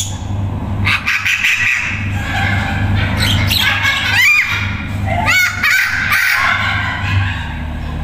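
Amazon parrot calling: a run of squawking calls from about a second in, several of them sliding up and down in pitch, over a steady low hum.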